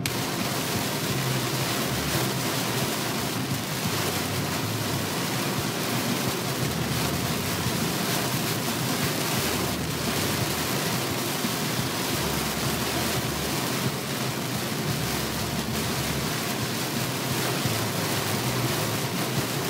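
Heavy rain and road spray heard from inside a moving car: a steady rushing noise of rain beating on the car and tyres running through standing water.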